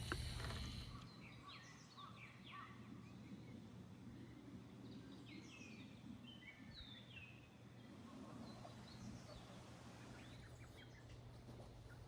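Faint wild birds calling in short chirping phrases every couple of seconds, over a quiet background hum.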